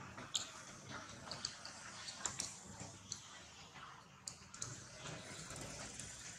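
Faint outdoor background with scattered sharp clicks and ticks at irregular intervals, about a dozen in all.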